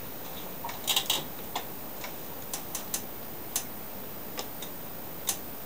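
Scattered sharp clicks and taps, the loudest a quick cluster about a second in, over a steady low hiss. No starter motor runs and no engine cranks: the electric starter on the Craftsman push mower does nothing, which the owner suspects is a bad starter.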